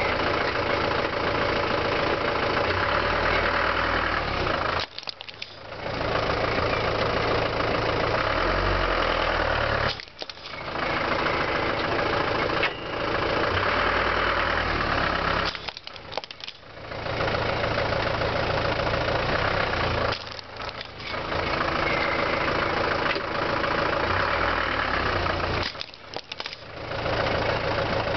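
Van engine idling and moving at low speed beside a die-cast metal toy car on rough asphalt. The sound comes in several takes, each a few seconds long, split by brief drops in sound about every five seconds.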